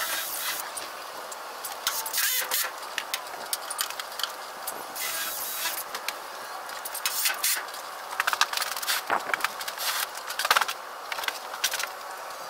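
Irregular clattering: knocks, rattles and metallic clinks coming in quick clusters, without any steady motor sound.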